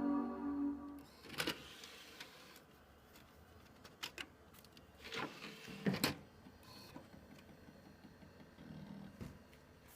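The Power Macintosh 7200's startup chime, a sustained chord, rings and fades out about a second in. Scattered clicks and short mechanical whirs from the computer follow as it starts booting.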